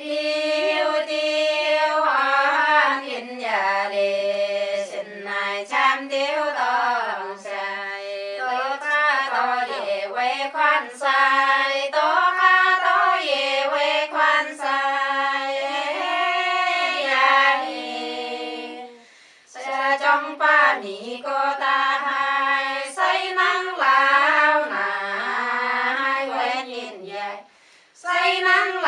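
Voices singing a song in a high register, with no instruments standing out, pausing briefly about two-thirds of the way through and again near the end.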